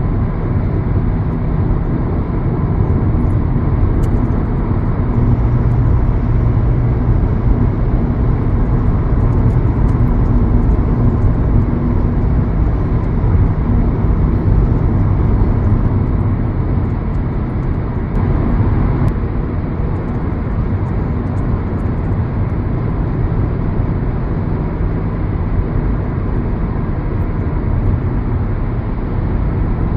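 A car driving: steady, loud low engine and road noise that holds unchanged throughout.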